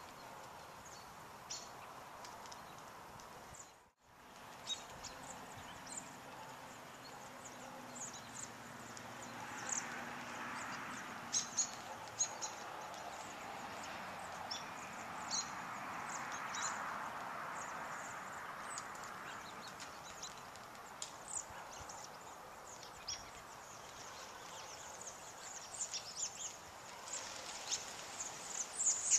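A large winter flock of American robins calling in flight: many short, high, thin calls scattered throughout, growing denser near the end, over a steady rushing background that swells in the middle. The sound drops out briefly about four seconds in.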